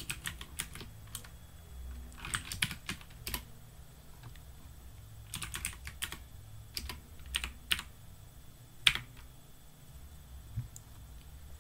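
Typing on a computer keyboard: short runs of keystrokes with pauses between them, one sharper keystroke about nine seconds in.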